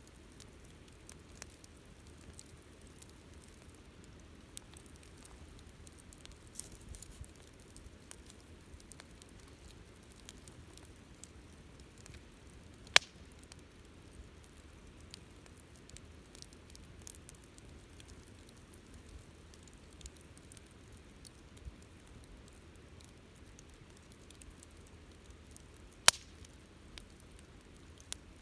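Wood campfire burning with soft, steady crackling and a faint hiss. Two sharp pops stand out, one about halfway through and one near the end.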